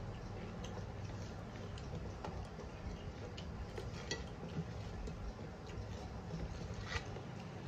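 Hands mixing and scooping rice on stainless-steel plates while eating by hand: scattered light clicks and scrapes against the metal, with a sharper click about four seconds in and another near the end, over a steady low hum.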